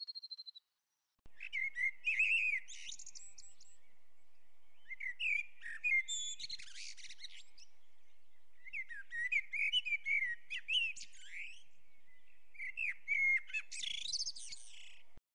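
Small songbirds chirping and twittering in short, quick phrases a second or two apart. It starts about a second in and cuts off abruptly just before the end.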